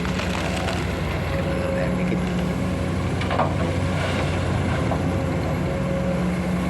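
Komatsu PC200 excavator's diesel engine running steadily while digging, with a brief knock a little past the middle.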